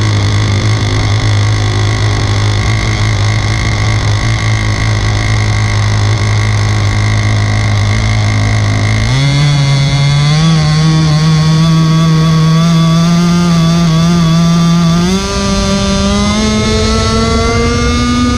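A 4-foot RC speed boat's gasoline two-stroke engine running hard, heard up close from on board. Its note holds steady for about nine seconds, then jumps up in pitch and keeps climbing as it speeds up, stepping up again near the end.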